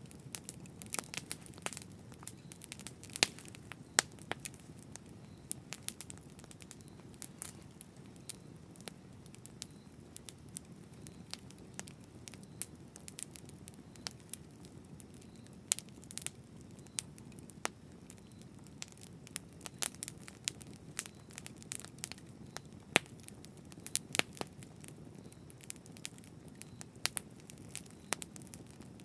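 Campfire burning with a steady low rumble and frequent irregular crackles and sharp pops as the wood burns.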